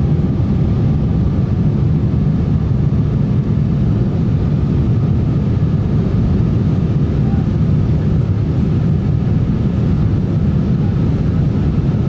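Steady, low cabin noise of a Boeing 747-8 in its climb after takeoff, heard from a passenger seat: the four GEnx-2B turbofans and the air rushing past the fuselage.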